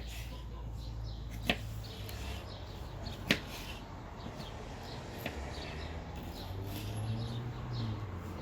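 A folding knife slicing a pepper: a few sharp knocks of the blade coming down, one every couple of seconds. Birds chirp faintly in the background.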